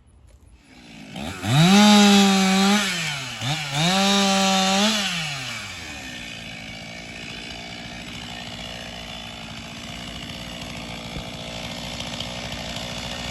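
Two-stroke chainsaw revved to full throttle twice, with a brief dip between, then dropping back to a steady idle.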